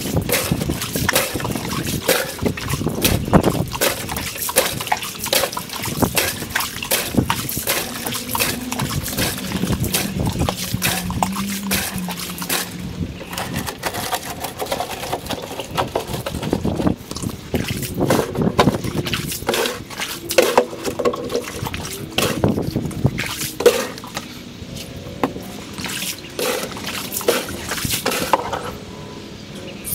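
Water trickling and sloshing in a shallow above-ground pool being drained through a hose, sped up four times, so it comes as a dense run of irregular small splashy clicks.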